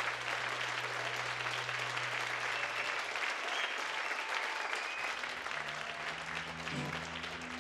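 Concert audience applauding steadily, with a few faint whistles, after a song ends.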